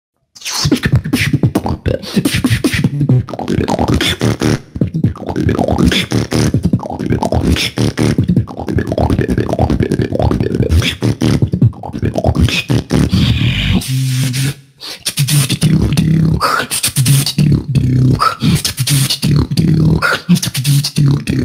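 A beatboxer performing a battle routine: fast kick and snare sounds with hissing hi-hats. About two-thirds of the way in there is a brief break, after which held bass tones run under the beat.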